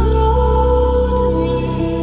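Background music: a soft pop song's instrumental passage between sung lines, with held notes over a steady bass.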